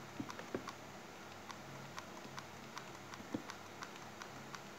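Faint, scattered clicks and taps from a hot glue gun being worked against a foil-wrapped plastic bucket, a few sharper taps near the start and about three and a half seconds in.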